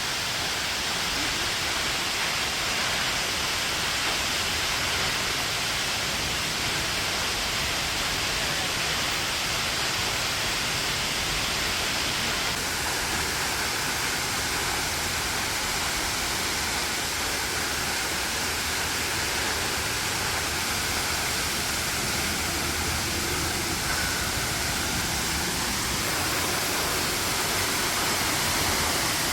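Waterfall crashing steadily, a dense even rush of falling water.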